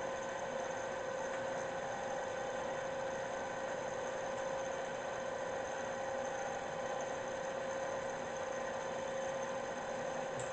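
Cyclematic S24B 2 hp geared-head drill press running with its power downfeed engaged: a steady hum with a constant mid-pitched whine from the gear head.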